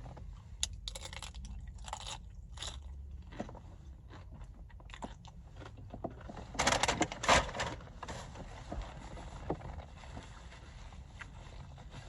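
Close-up eating sounds: a person biting and chewing crunchy food, with scattered crackling crunches. The crunching is loudest and densest about seven seconds in.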